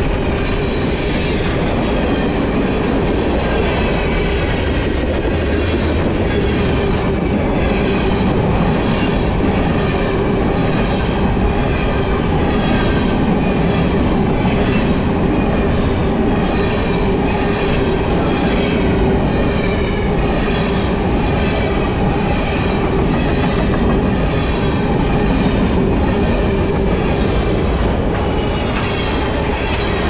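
Freight train cars rolling past close by: steel wheels clattering over the rails with a steady, loud rumble that keeps on without a break.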